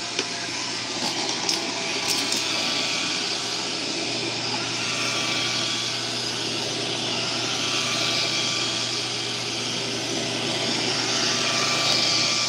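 iRobot Roomba robot vacuum running on carpet in spot-cleaning mode, its brush and suction motors making a steady whir with a constant hum. A few light clicks come in the first couple of seconds.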